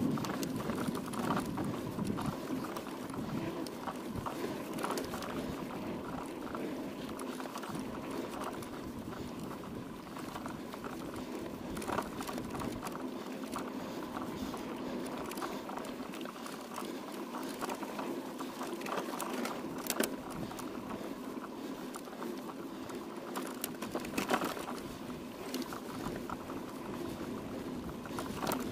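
Mountain bike being ridden over rough dirt and gravel: a steady crackling rumble of tyres and rattling bike parts, with a few sharp knocks from bumps.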